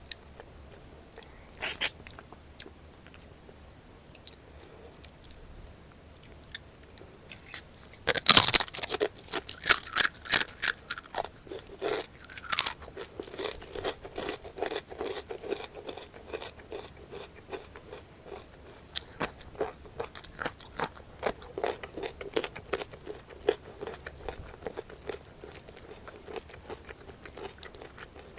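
Close-miked eating of crisp food: a loud bite about eight seconds in, followed by several seconds of sharp crunching. After that it settles into softer, steady chewing.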